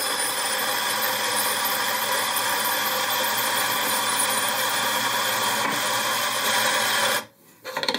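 Turin DF83V single-dose grinder, its DC brushless motor driving 83 mm flat burrs, grinding coffee beans fed into it while already running: a steady motor whine over the grinding noise, with no stalling or overloading of the motor. It stops abruptly about seven seconds in, and a brief noise follows near the end.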